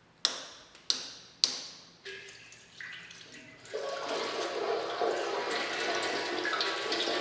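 Three sharp metallic clicks from a tool working a coolant line connection, then engine coolant starting to gush steadily out of a disconnected coolant line into a bucket about a third of the way in.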